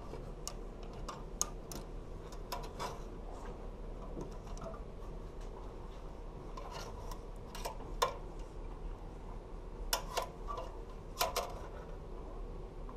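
Plastic and wire clothes hangers clicking and scraping along a metal clothing rack as garments are slid aside one by one, with fabric rustling. The clicks come at irregular moments, a few louder ones near the end.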